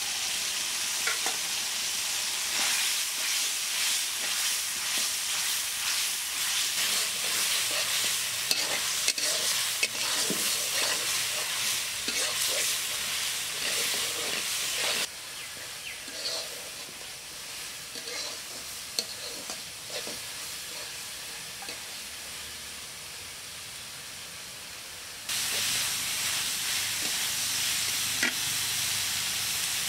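Small shrimp sizzling in hot oil and spice paste in an iron kadai, stirred with a spatula that scrapes across the pan. About halfway through the sizzling drops abruptly quieter for some ten seconds, then comes back at full strength.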